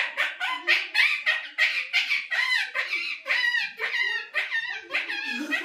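A man imitating a puppy's yelps, his hand cupped over his mouth: a rapid, unbroken run of short high yelps, each falling in pitch, about three a second.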